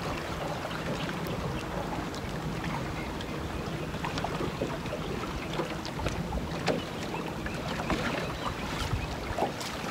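Wind and choppy lake water lapping at a small fishing boat: a steady noise with a faint low hum under it and scattered light clicks and taps.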